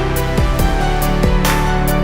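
Electronic background music with a steady beat: falling kick-drum hits, hi-hat and snare strikes over sustained synth chords.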